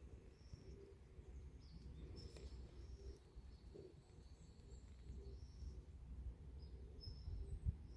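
Faint bird chirps, short high notes repeating every second or so, over a low rumble on the microphone that grows with a few bumps near the end.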